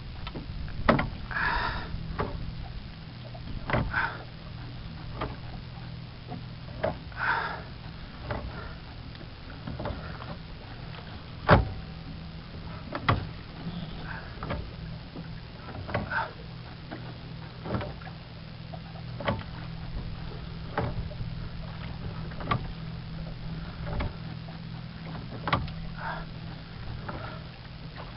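Single sculling oar working in the Godyoto prototype automatic sculling mount on a wooden boat's transom: a sharp knock about every second and a half as each back-and-forth stroke reverses, a few strokes in the first eight seconds with a short creak. A steady low hum runs underneath.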